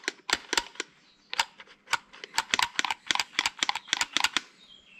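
Quick run of sharp clicks, several a second, from hand tools working on a Kubota tractor starter motor during reassembly. There is a pause of about a second near the start, and the clicks stop shortly before the end.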